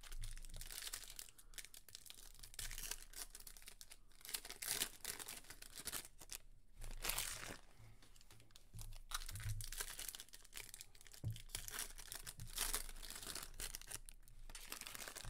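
Foil trading-card pack wrappers being torn open and crinkled by hand, in irregular crackling bursts.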